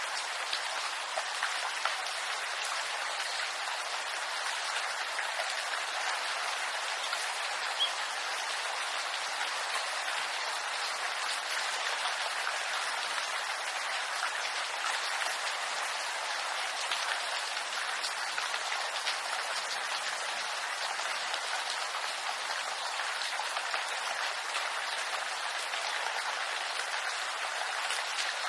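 Steady rain falling on a bamboo grove, a dense even hiss of drops on leaves with many small distinct drop taps.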